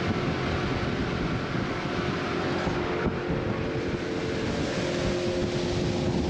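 Aluminum fishing boat running underway on its outboard motor, with steady wind and water noise. About three seconds in the sound shifts, and a steady hum comes in.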